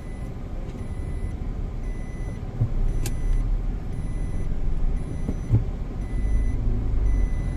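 Steady low rumble of a car's engine and tyres heard from inside the cabin while driving. A faint high-pitched tone sounds on and off, and there is a single sharp click about three seconds in.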